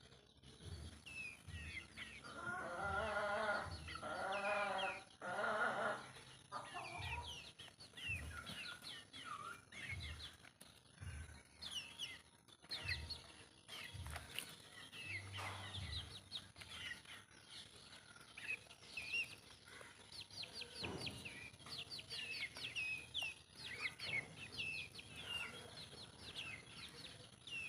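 Free-range desi chickens calling and clucking, with a loud run of pitched calls a couple of seconds in, and many short high chirps throughout.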